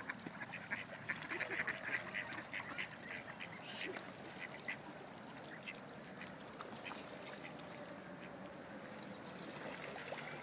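Mallard ducks quacking: a busy run of short calls over the first few seconds, thinning out after that.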